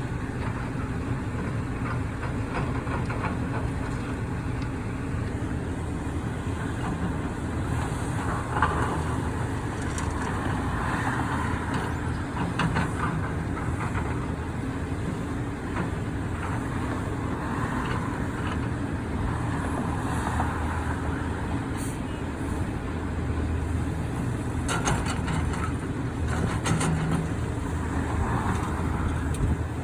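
Heavy diesel construction machinery running steadily, with scattered metallic clanks and bangs.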